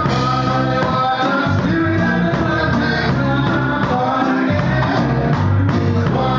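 Live band playing: singing over keyboard and drum kit, loud and continuous.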